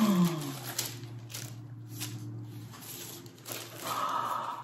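A man's drawn-out wordless "ooh" that falls in pitch and settles into a low hum held for a couple of seconds, with light rustling of packaging as he unwraps an item.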